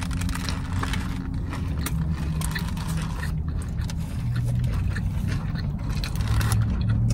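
Chewing and small mouth and wrapper clicks of someone eating a burger, over a steady low vehicle-like hum that grows louder near the end.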